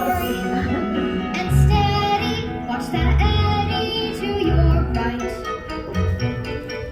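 A song sung by a young voice over a musical accompaniment, with a low bass note coming round about every one and a half seconds.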